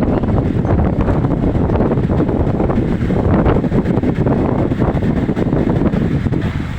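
Strong wind buffeting the microphone in loud, gusting rumbles, over the faint wash of sea surf.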